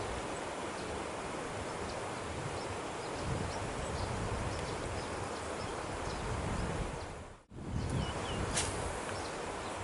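Wind buffeting the microphone over a steady outdoor noise, with gusty low rumbles. The sound drops out briefly about seven and a half seconds in, then comes back with a couple of short chirps and a sharp click.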